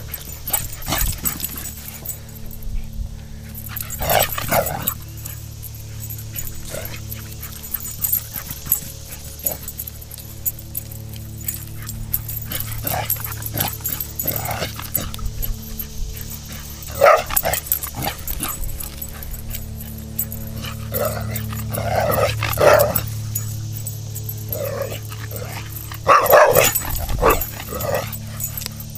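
Dogs barking in scattered short bouts, the loudest near the end, over steady background music.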